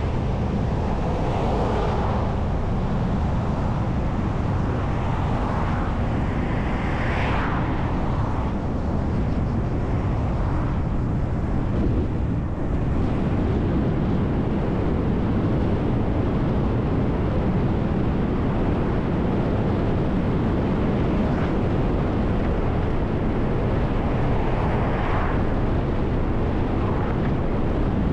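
City bus driving at road speed: a steady rumble of engine, tyres and wind. Three times a passing vehicle briefly swells up and fades away.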